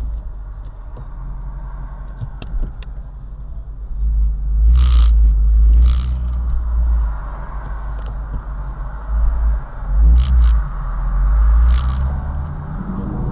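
Shelby GT350's 5.2-litre flat-plane-crank V8 exhaust rumbling as the car is driven, heard from inside the cabin. It swells louder about four seconds in and again about ten seconds in, with a few short sharp clicks.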